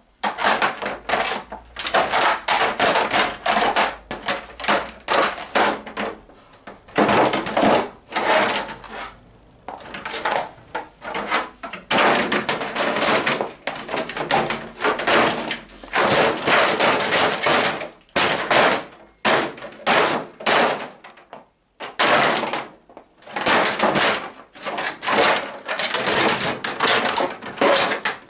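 A 1/5-scale RC car being smashed: rapid, repeated hard blows on its plastic body and chassis, in runs of several seconds with short breaks between them.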